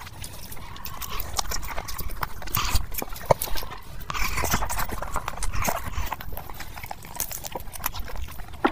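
Close-miked eating sounds: wet chewing and lip smacking with many irregular mouth clicks, as curry-soaked chicken is bitten and torn from the bone.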